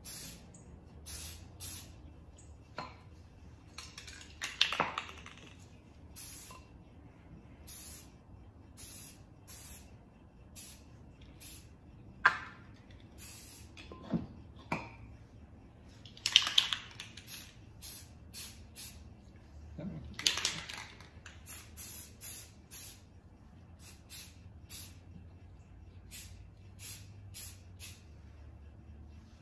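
Rust-Oleum aerosol spray paint cans spraying in many short bursts of hiss with brief gaps, as a camouflage pattern is dabbed on freehand. A few louder knocks and clinks of the metal cans being handled come in between.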